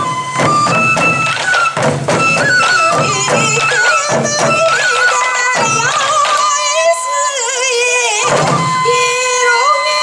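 Sansa-odori taiko drums, hip-slung and beaten with sticks by a troupe of dancers, playing in quick rhythmic groups of strokes under a high, wavering melody. The drums break off twice in the second half while the melody carries on.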